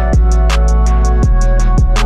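Background music with a steady beat: deep kick drums that fall in pitch, roughly two a second, with high ticking percussion over sustained chords.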